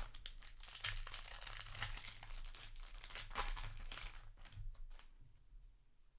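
Foil wrapper of a Magic: The Gathering play booster pack being torn open and crinkled, a dense crackling for about four and a half seconds. Near the end the cards are slid out and handled, much quieter.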